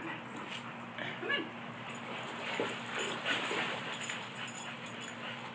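A dog whimpering, with short high-pitched cries scattered throughout.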